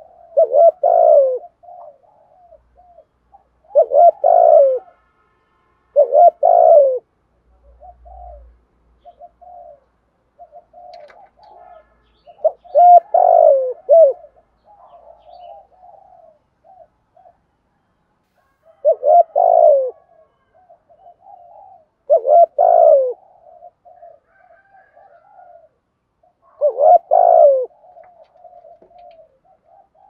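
Spotted dove cooing: loud, low coo phrases repeated every few seconds, with softer short coos between them.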